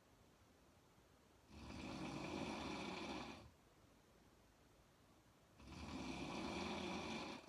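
A woman snoring in her sleep, one snore per breath: one begins about a second and a half in and another near the end, each lasting about two seconds, with quiet breathing gaps between them.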